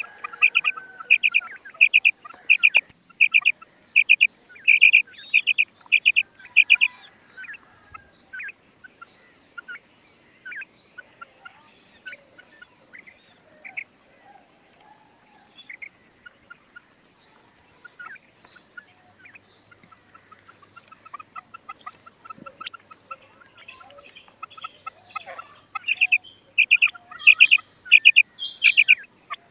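Female quail calling: a run of short, high, evenly spaced notes at about two a second, loud at the start and again near the end, with softer scattered notes in between.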